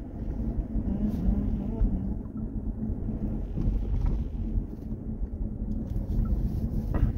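Car cabin noise while driving: a steady low rumble of the engine and tyres on the road heard from inside the car.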